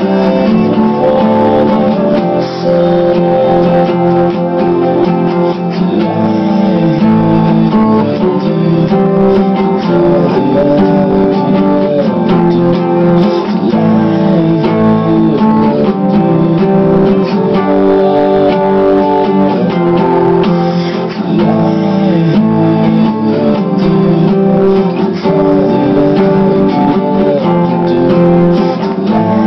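Acoustic guitar strummed, playing a continuous run of chords that change every second or so.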